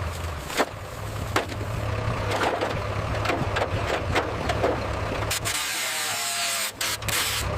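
Low engine rumble with scattered sharp knocks and clanks of workshop tools, cutting off about five and a half seconds in to a steady hiss.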